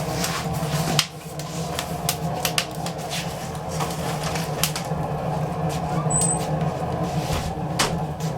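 Wood fire burning in a fireplace on pallet and crate wood, crackling with irregular sharp pops; one louder pop about a second in.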